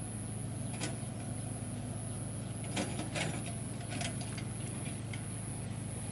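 Diesel engine of a tractor-driven rice-field channel digger running steadily under load, with a few short sharp knocks or splats over it.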